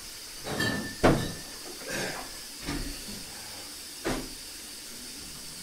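A few short, sharp breaths and sniffs through the mouth and nose, five or so spread over the first four seconds, from people suffering the burn of an extremely hot chili-coated nut.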